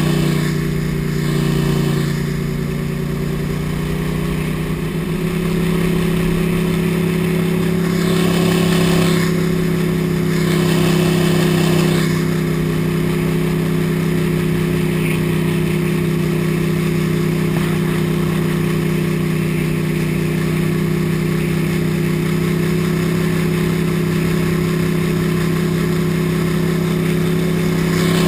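Gator-Tail surface-drive mud motor's Vanguard air-cooled engine running hard and steady, pushing the boat through a shallow, muddy slough. The revs ease slightly a couple of seconds in, then hold, with two short rushes of hiss around eight and ten seconds in.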